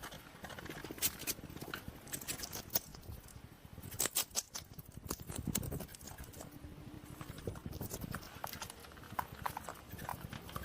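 A hedgehog making quick, irregular clicks and low noisy sounds, with a few short high squeaks near the end.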